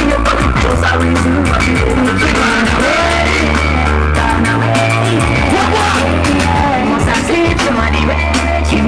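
A sound system playing music at high volume: a song with a singer over deep bass notes that are each held for a second or two.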